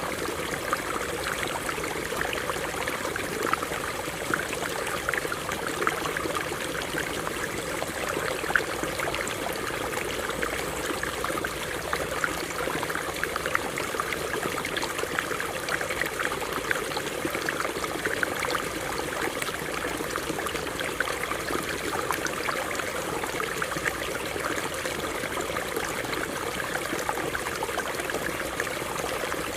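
Stream water running over rocks: a steady rush of many small splashes and trickles that does not let up.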